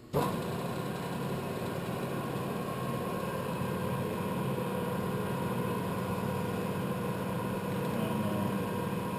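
Clausing Colchester 16-inch geared-head lathe switched on: the motor and headstock gearing start suddenly and then run at a steady speed with a constant hum and whine.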